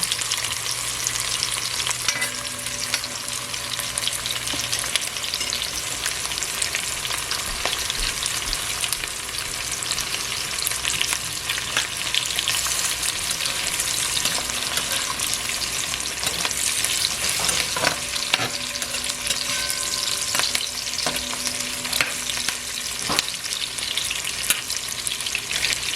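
Sliced onions frying in plenty of hot vegetable oil in a pot: a steady sizzle of crackles and small pops.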